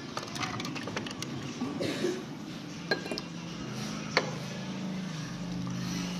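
Dishes and cutlery clinking: a quick run of light clinks in the first second or so, then a few single sharp clinks, the loudest about four seconds in.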